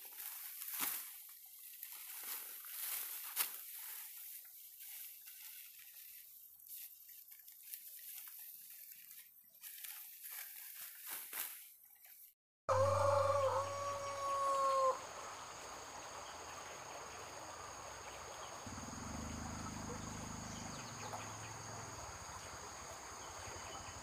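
Ripe rice stalks rustling and crackling as they are harvested by hand. After a short break, a rooster crows once, a long call held on one pitch for about two seconds. A steady high hum continues after the crow.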